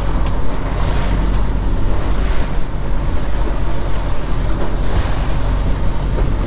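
Twin 150 hp outboard motors running steadily at trolling speed, under the rush of the boat's churning wake and gusts of wind on the microphone.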